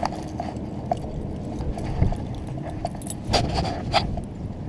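Handling noise of the camera rubbing against a nylon jacket: a low rumble with scattered small clicks and light jingles, the loudest a few seconds in.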